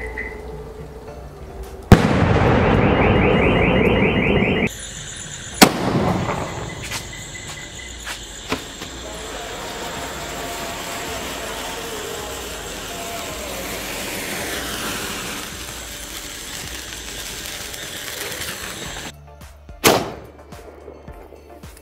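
Cock Brand sky shot fireworks going off in a series of clips. A sharp bang about two seconds in is followed by a couple of seconds of loud, dense crackling that cuts off suddenly. Another bang comes soon after, then a long stretch of steady hissing, and a last bang near the end.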